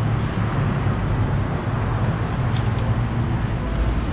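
Steady street traffic noise with a low engine hum from motor vehicles running nearby, and a few faint ticks late on.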